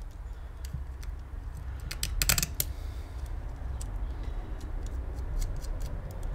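Small metal parts and tools clicking and tapping as a Bing carburettor's choke linkage is fitted and its nut readied by hand, with a quick cluster of clicks about two seconds in, over a low steady hum.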